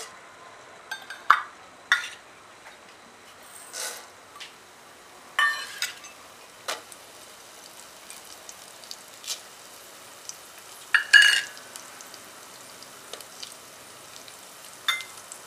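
Whole spices (coriander seeds, urad dal, fenugreek, cumin and dried Byadgi chillies) frying in hot coconut oil in a stainless steel pot: a faint steady sizzle broken by about ten short sharp clinks of a spoon against the steel as the ingredients are tipped in, the loudest about two-thirds of the way through.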